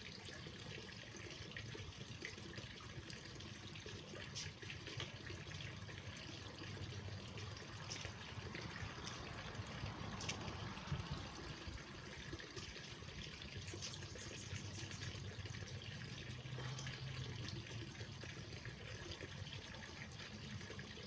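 Faint steady background noise with a low hum, broken now and then by a few faint clicks.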